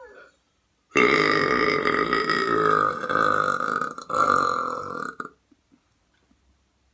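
A person's long, loud burp lasting about four seconds, with a brief catch a little before the end.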